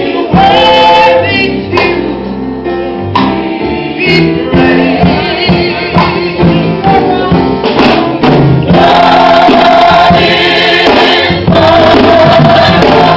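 Gospel choir singing in full voice, with a male lead singer on a corded microphone. In the second half the choir holds long sustained chords.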